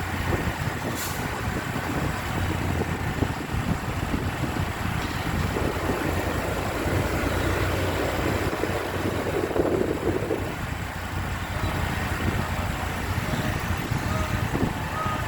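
Bus engine and road noise, steady throughout, swelling and then fading back around the middle.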